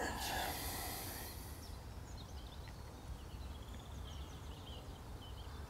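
Quiet lakeside ambience: faint, scattered birdsong chirps over a steady low rumble, with a brief rush of hiss in the first couple of seconds.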